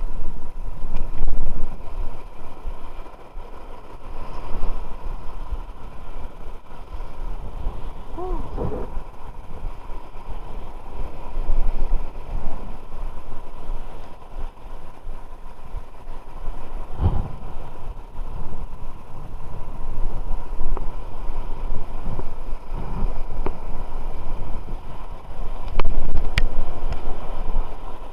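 Wind buffeting the microphone outdoors, a rumbling noise that swells and falls, with a brief wavering call about eight seconds in and a single knock about seventeen seconds in.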